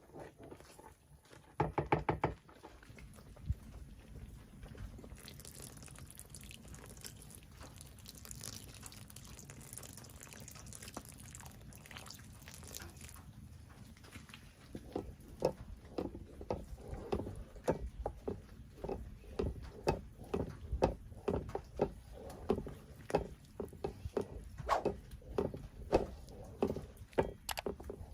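Kitchen food-preparation sounds. A brief loud rattle comes about two seconds in, then a steady hiss for several seconds. After the middle, a long run of quick, irregular knocks follows, about two or three a second.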